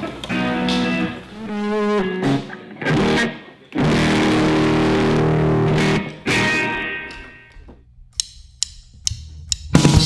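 Electric guitar playing loose single notes and a held chord through effects, then a few sharp clicks; near the end the full rock band comes in loudly.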